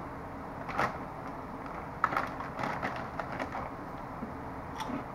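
Kettle-cooked potato chips being handled and eaten from their crinkly bag: a few sharp crackles about a second in, then a run of crackling and crunching over the next second and a half, and another crackle near the end. A steady low hum runs underneath.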